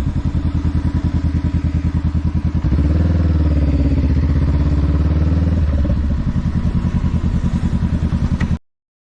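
Honda Rebel 500's parallel-twin engine idling with an even, pulsing beat. About three seconds in it is revved and held at a higher speed for about three seconds, then drops back to idle. The sound cuts off suddenly near the end.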